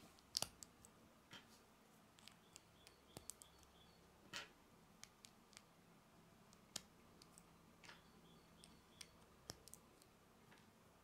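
Small plastic Lego pieces clicking as they are pressed together and handled: a scattering of sharp clicks, the loudest pair about half a second in.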